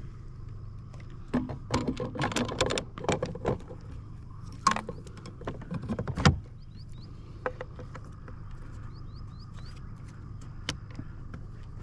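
Clatter of gear being handled on a boat deck: a run of clicks, knocks and rattles from about one to three seconds in and again around five to six seconds, ending in one sharp knock. Short bird chirps come twice later over a steady low hum.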